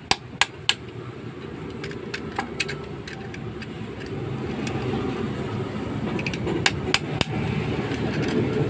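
Sharp metal clicks and scraping from a cutter blade working at a motorcycle stator's ground wire to cut it free. There are a few clicks near the start and a cluster near the end, over a steady low hum.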